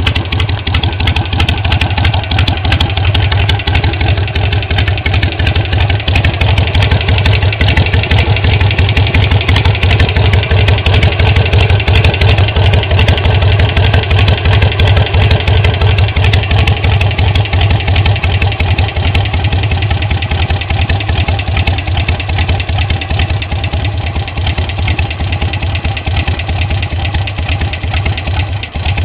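Harley-Davidson Sportster 883 Low's air-cooled V-twin engine idling steadily, with a ticking sound in its running.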